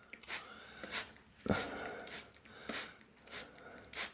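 Hand-pump spray bottle spritzing a fine mist of water, about seven short squirts at irregular intervals, the strongest about a second and a half in.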